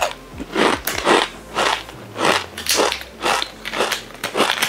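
A person chewing a crunchy packaged snack (Boyki), about two crunches a second, close to a clip-on microphone.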